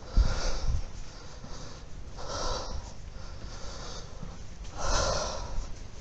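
A person breathing close to the microphone: two noisy breaths about two and a half seconds apart, with a low bump near the start.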